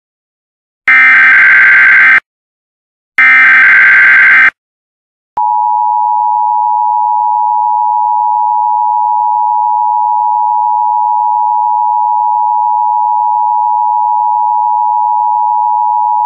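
Emergency Alert System SAME header: two screeching bursts of digital data tones, each a little over a second long and about a second apart. About a second after them the steady two-tone EAS attention signal starts, two tones close together just under 1 kHz, and holds unbroken.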